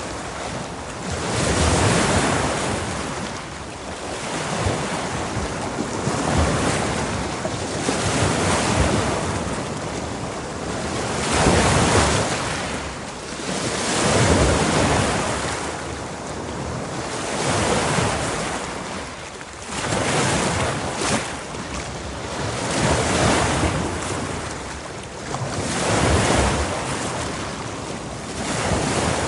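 Ocean surf: waves breaking and washing in, the noise swelling and falling back every two to three seconds, with wind over the microphone.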